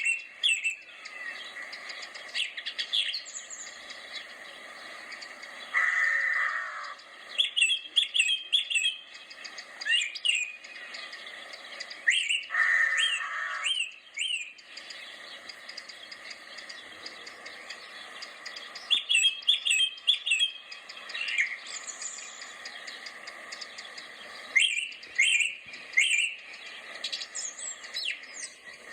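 Wild birds chirping and calling in quick, sharp notes, in bursts every second or two, over a steady background hiss. Twice a buzzy call about a second long stands out, lower than the chirps.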